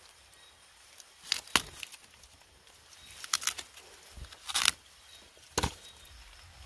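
Person moving through undergrowth: a handful of short rustles and knocks at irregular intervals over a low background.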